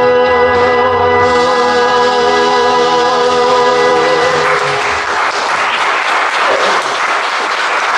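The song's final chord held steady, ending about four and a half seconds in, followed by audience applause.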